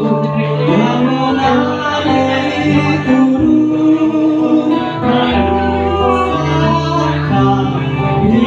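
Live acoustic band: a singer with acoustic guitar and violin, the guitar strummed under long held violin and vocal notes.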